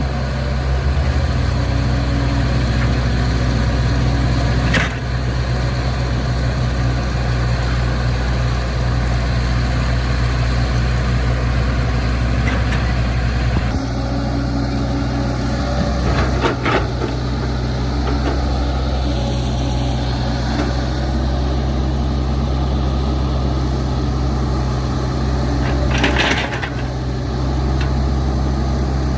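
Heavy diesel engine of earthmoving machinery running steadily at a constant speed, with a few brief knocks spread through.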